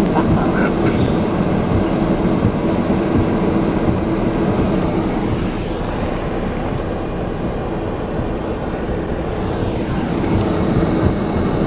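Car driving slowly over a muddy, rutted field track, heard from inside the cabin: a steady engine hum with rumble from the tyres and body, easing a little midway and building again near the end.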